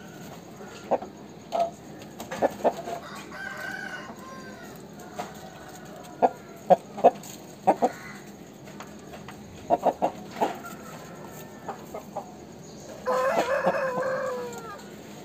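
Aseel roosters clucking in short, sharp notes scattered through the first ten seconds, then one long crow near the end that falls in pitch as it finishes.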